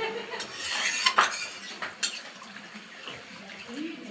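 Metal kitchen utensils and dishes clinking and scraping, with a few sharp clinks.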